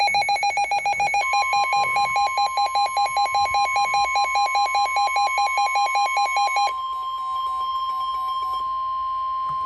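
NOAA Weather Radio's steady warning alarm tone, which marks the start of a warning broadcast. Under it, from the start, a weather radio receiver beeps rapidly, about six beeps a second. The steady tone comes in about a second in, and the loud beeping stops a little before seven seconds while the tone holds on.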